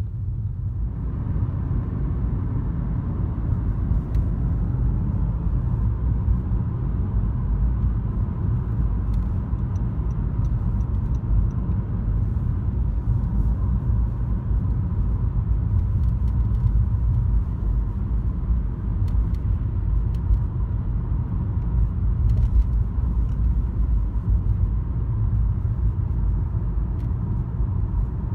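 Car driving along a road, heard from inside the cabin: a steady low road and engine rumble that grows louder about a second in as the car gets up to speed.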